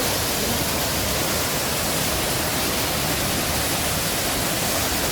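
Steady, even rush of falling water, as from a waterfall.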